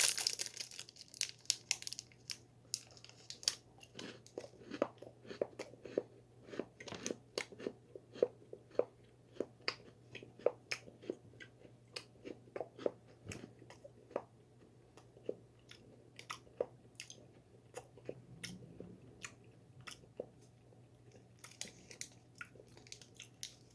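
Bourbon Alfort chocolate-topped biscuit being bitten and chewed close to the microphone: crisp crunches, dense at first and gradually thinning as the mouthful is chewed down.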